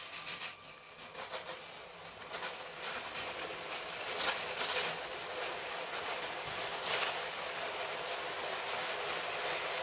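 Long Lego City passenger train (set 60197) running on plastic Lego track: a steady clatter of small plastic wheels over the rails and track joints, growing louder over the first few seconds as it comes closer, with a few sharper clacks through the middle.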